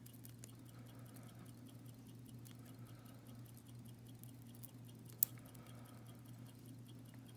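Faint small clicks and scratches of metal tweezers handling tiny lock pins, with one sharp click about five seconds in, over a low steady hum.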